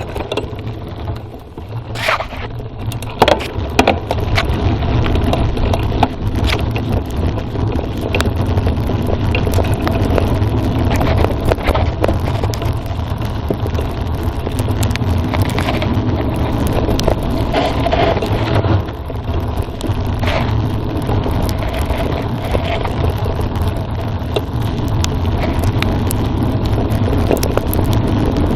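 Mountain bike riding down a dirt forest trail, heard from an onboard phone: tyres crunching and scraping over the ground, with frequent sharp knocks and rattles from the bike over bumps, and a steady low rumble of wind on the microphone.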